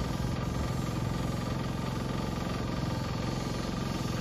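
Small engine running steadily at a constant speed, with an even low hum and no change in pitch.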